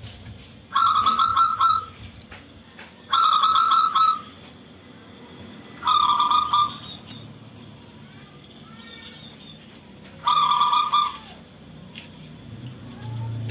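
Zebra dove (perkutut) cooing in shrill, quickly pulsed phrases: four loud calls of about a second each, the last one after a longer pause.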